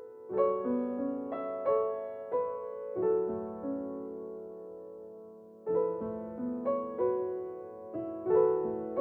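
Background music: slow, gentle piano, single notes and chords struck and left to ring, with a long held chord in the middle before the melody picks up again.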